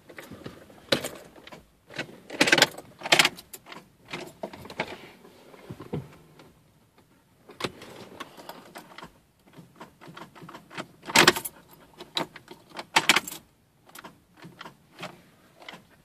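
Irregular clicks, knocks and rattles of a camera phone being handled and moved around inside a Jeep's cab, with short jangly bursts, the loudest around the middle and again about three seconds before the end.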